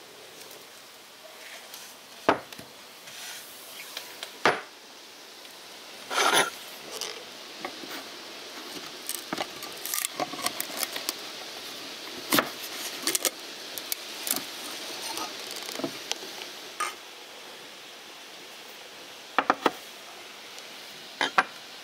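Scattered sharp metallic clicks, clinks and scrapes of hand work: a flat screwdriver prying the lid off a metal tin, and the tin and its lid being handled. The clicks come in clusters, with a quieter stretch near the end before a few last clicks.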